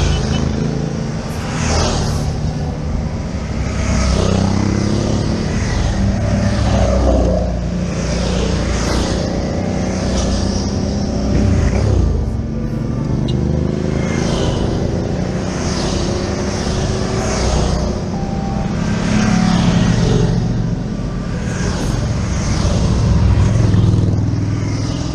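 Motorcycles riding past one after another, each engine swelling and fading as it goes by every couple of seconds, over a steady low engine rumble.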